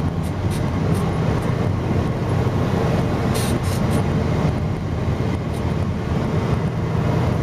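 Steady road and engine noise inside a car cruising at highway speed: a constant low rumble of tyres and drivetrain, with a few brief clicks about three and a half seconds in.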